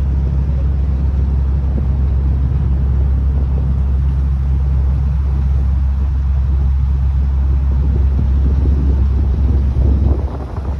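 A ferry's engine gives a steady low drone under a rushing haze, dipping briefly in level near the end.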